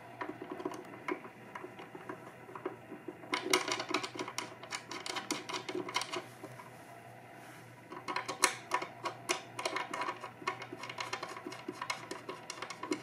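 Light metallic clicking and rattling from a swivel caster's steel mounting plate and its bolts being handled while the bolts are threaded in by hand. It comes in three spells of quick clicks, with a quiet pause a little past the middle.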